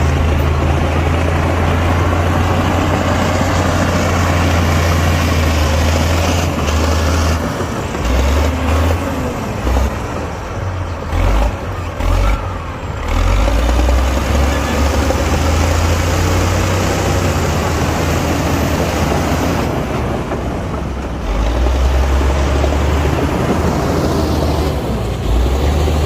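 Diesel engine of heavy earthmoving machinery running continuously with a deep, steady hum. Its level dips and surges unevenly about a third of the way through, then evens out again.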